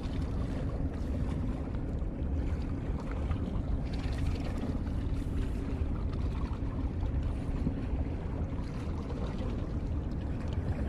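Steady low rumble of wind buffeting the microphone outdoors at the water's edge.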